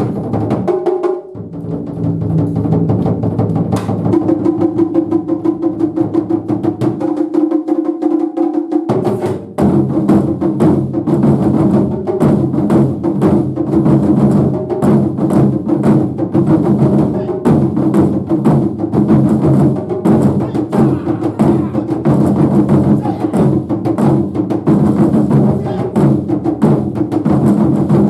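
Japanese taiko drum ensemble playing a fast, dense rhythm of strikes. The deepest drums drop out briefly, then the full ensemble comes back in about nine and a half seconds in.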